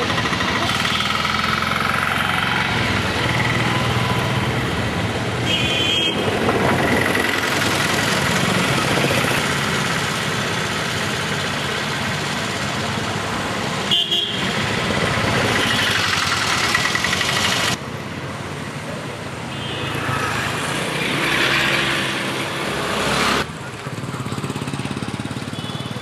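Town street traffic: motorcycles and scooters running past, with short horn toots about six and fourteen seconds in.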